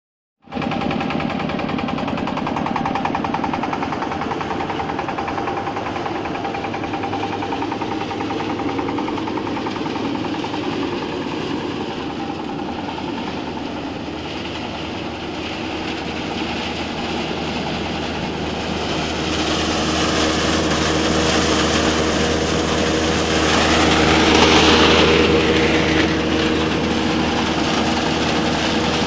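Single-cylinder diesel engine running steadily under load, driving a peanut stripping machine. From about twenty seconds in, a harsher rushing noise from the threshing drum and plants going through the machine builds up, loudest a few seconds before the end.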